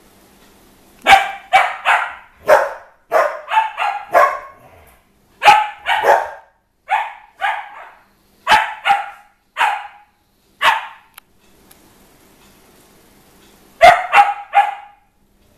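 A dog barking in quick runs of two to five sharp barks, about twenty in all, with a lull of a few seconds before a last run near the end.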